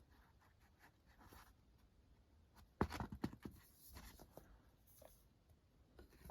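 Faint handling of paperback manga volumes: paper and cover rustling with a few light taps, mostly from about three seconds in.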